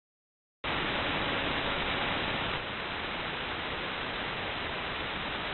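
Steady radio static hiss from a KiwiSDR online receiver's AM audio, tuned to 225 kHz longwave, where Polish Radio's Jedynka transmits; no programme comes through the noise. The hiss starts suddenly about half a second in and drops a little in level about two and a half seconds in.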